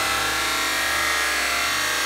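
Hand-held hair dryer blowing with a steady whir.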